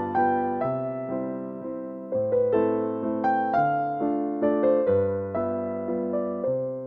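Background music: a soft piano melody with struck notes that ring and fade, several chords a second or two apart.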